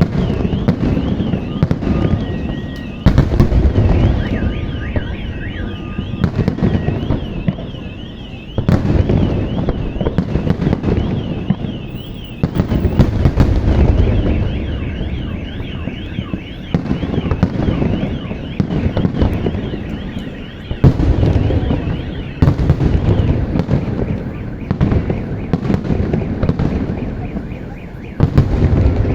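Fireworks display: aerial shells going off in rapid, overlapping booms and crackles. A car alarm warbles through much of it, stopping and starting.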